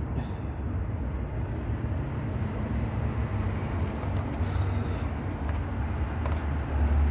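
Small clicks and taps of an ignition coil being worked out of a 2005 Nissan Altima's four-cylinder engine, over a steady low rumble.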